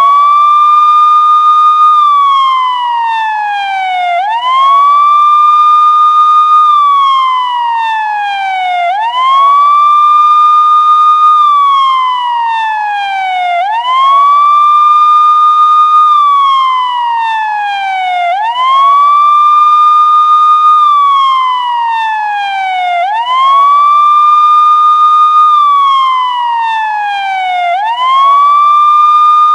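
Police siren sounding a steady wail: each cycle rises quickly to a high tone, holds it for about two seconds, then slides slowly down, repeating about every four and a half seconds.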